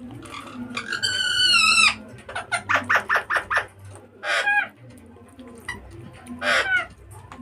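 A bird calling several times: one long wavering call, then a quick run of short notes, then two more short calls.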